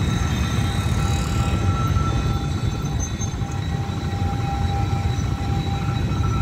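Steady low rumble of many motorbike engines and road traffic at a railway level crossing, with faint steady high tones running above it.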